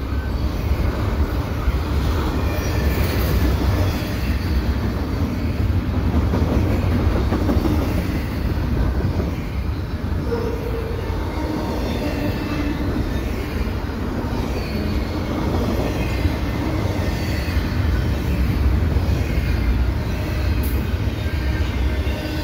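Double-stack intermodal freight cars rolling past at speed: a steady rumble of steel wheels on rail, with faint short high-pitched wheel squeals now and then.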